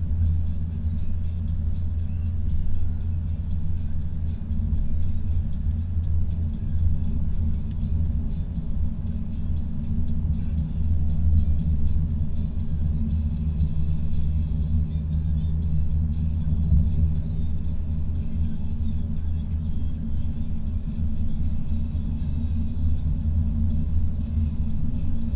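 Steady low rumble of a car's engine and tyres on the road, heard inside the cabin while driving at speed.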